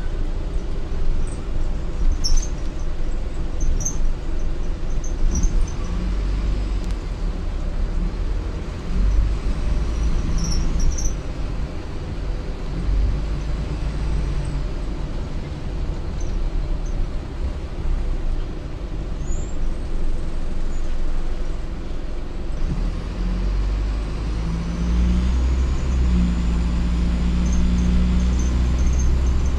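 Interior running noise of an Optare Solo M950 bus on the move: its diesel engine running under road rumble, with short high squeaks from inside the bus now and then. The engine note rises and grows louder in the last few seconds as the bus speeds up.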